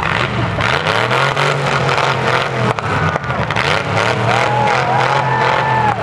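Demolition derby cars' engines revving hard, the engine note rising and falling, amid the general din of the arena.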